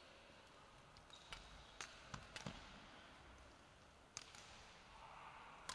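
Faint, sharp cracks of badminton rackets striking a shuttlecock during a doubles rally: a quick run of hits between about one and two and a half seconds in, then a single hit about four seconds in.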